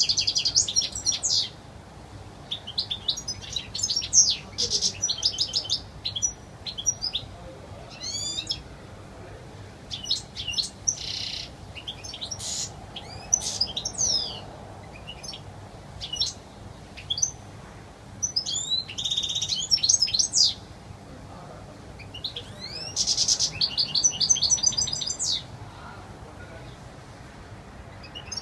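European goldfinch singing: bursts of fast, high twittering and trilling phrases with quick down-sweeping notes, broken by short pauses.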